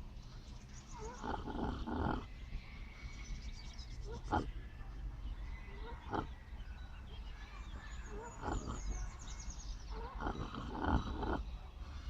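Miniature pot-bellied pig snoring in its sleep: a series of short snores at uneven intervals.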